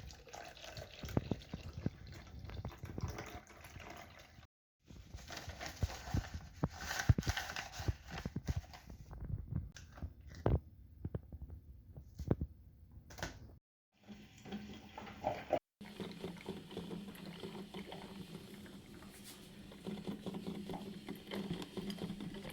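Coffee-making sounds in short edited sections: liquid pouring and dripping with small clicks and taps, broken by abrupt dead-silent cuts. The last section adds a steady low hum under the clicks.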